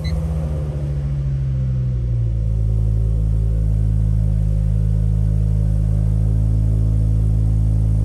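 Ford Focus ST225's turbocharged five-cylinder engine just started and idling. The note shifts and settles about two seconds in, then runs steadily.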